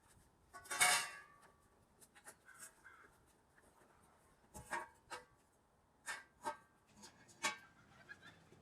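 Steel frame parts being set down one at a time: a louder metal clank with a brief ring about a second in, then several lighter knocks and taps.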